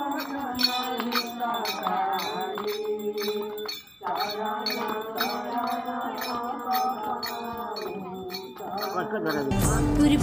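Background music: a wavering melodic line over regular chiming, clinking hits, breaking off briefly about four seconds in, with a heavy bass beat coming in near the end.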